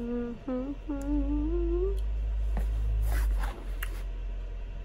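A woman humming a short wordless tune for about two seconds, followed by a low rumble with faint rustling and a few soft clicks.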